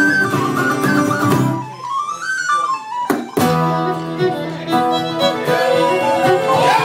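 Irish traditional band playing a set of tunes. About two seconds in, the accompaniment drops out and a single melody line plays alone for a moment, broken by a click. The full band then comes back in.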